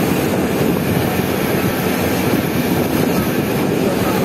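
A passenger riverboat's engine running steadily while underway: a constant low drone with an even rushing noise above it.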